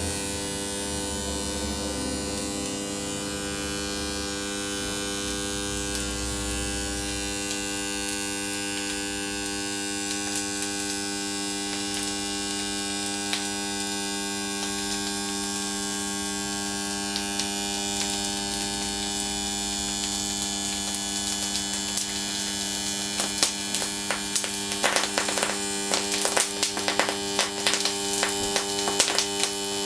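The bare stator of a rotary air-conditioner compressor motor, energised from the mains with no rotor in it, humming and buzzing steadily. From about two-thirds of the way in, crackling and popping sets in and grows denser: water trapped in the windings boiling off as the oil in them superheats while the stator burns out.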